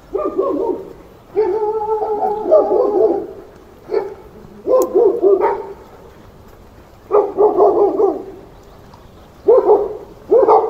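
A dog barking in repeated bouts, some short and some running a second or two, with brief pauses between them.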